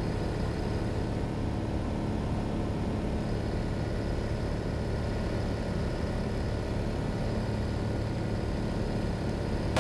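Cessna 182's piston engine and propeller droning steadily in flight, heard from inside the cockpit: an even, unchanging hum.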